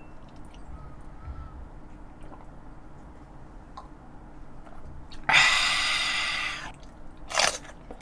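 A man downs a shot of soju, then lets out a loud, raspy exhale of satisfaction about five seconds in that fades over a second or so. A shorter breath follows shortly after.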